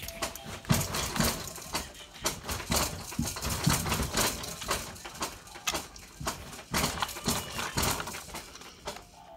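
Plastic cars of a North Pole Express toy train set clicking and clattering as they are handled and fitted onto the track, with irregular sharp clicks and a few dull knocks.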